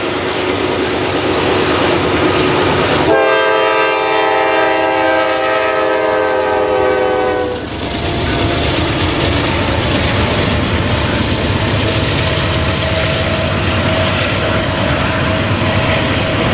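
Norfolk Southern freight train passing close, its diesel locomotives rumbling. About three seconds in, the lead locomotive sounds its air horn in one long blast of about four and a half seconds, the pitch sagging slightly as it goes by. Then the wheels clatter over the rail joints as the intermodal cars roll past.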